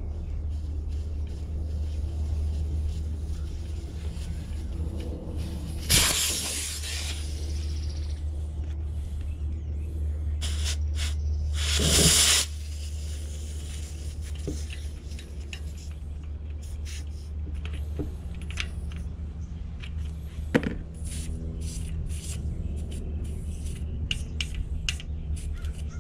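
Two bursts of hissing air while a tubeless mountain-bike tyre is being fitted: one lasting over a second about six seconds in, and a shorter, louder one near the middle. Scattered small clicks and scrapes follow, over a steady low hum.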